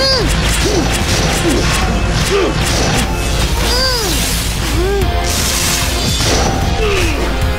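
Animated fight sound effects, with crashes and hits and an electric zap, over dramatic action music. A string of short rising-and-falling pitch swoops runs through it.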